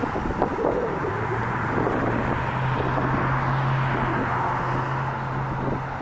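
Outdoor traffic rumble with a steady low engine hum that comes in about a second in.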